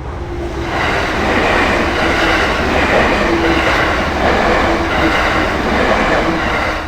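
A train running past on the JR Takayama Main Line: a loud, steady rush of wheel-on-rail noise that builds about a second in, with regular swells about once a second, and drops away near the end.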